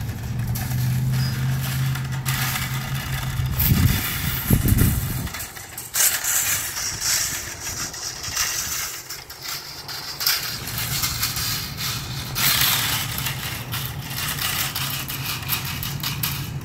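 A steady low engine hum that breaks off about five seconds in and comes back near ten seconds, under a noisy hiss with scattered knocks and rustles.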